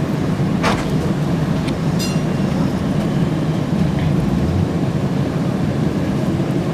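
UTDC/Hawker Siddeley CLRV streetcar running on its rails, heard from aboard: a steady rumble with a few sharp clicks, one of them about two seconds in briefly ringing.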